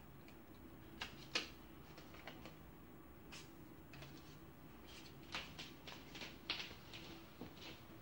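Paper cutouts rustling and crinkling in someone's hands: faint, scattered short crackles, with a louder crinkle about a second and a half in and a run of them in the second half.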